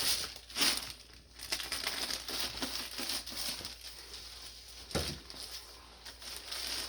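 Plastic bag crinkling and rustling as it is opened and a garment is pulled out, with two sharper bursts of noise, about half a second in and about five seconds in.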